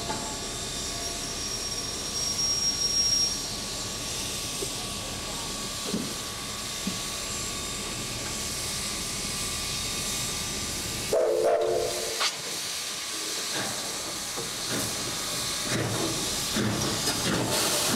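Canadian Pacific 2317, a 4-6-2 Pacific steam locomotive, hissing steam as it draws slowly closer. About eleven seconds in there is a brief, louder blast made of a few steady tones, and there are some irregular low knocks near the end.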